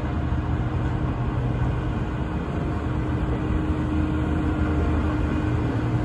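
Volvo single-drum roller compactor's diesel engine running steadily as the roller drives slowly over a gravel base, a constant low drone.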